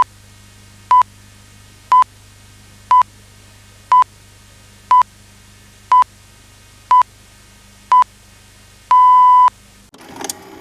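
Countdown beeps: a short, steady high beep once a second, nine times, then one longer beep, over a faint low hum. Near the end a click sounds, and a VHS tape player's mechanism starts running.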